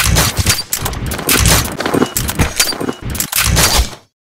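Intro sound effects: a rapid run of loud gunfire-like bangs and sharp metallic clacks, some with a short ring, stopping about four seconds in.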